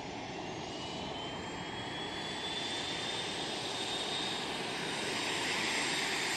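F/A-18 Hornet's twin jet engines at taxi power as the fighter rolls past close by: a steady jet roar with a thin high turbine whine that slowly rises in pitch, growing gradually louder.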